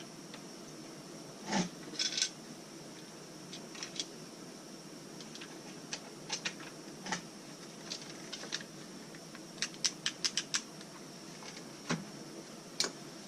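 Scattered light clicks and taps of small hard objects being handled, with a quick run of about half a dozen clicks about ten seconds in.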